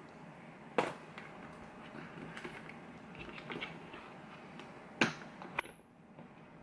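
Faint scratching and small clicks of metal lock picks working in a padlock, with three sharper clicks: one just under a second in and two close together about five seconds in.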